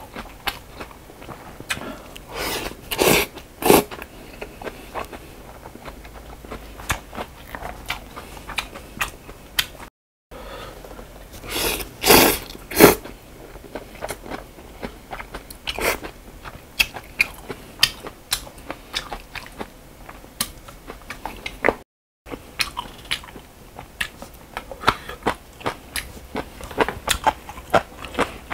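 Close-miked eating: wet chewing and lip-smacking clicks throughout, with two loud slurps of noodles, about three seconds in and again about twelve seconds in. The audio drops out briefly twice.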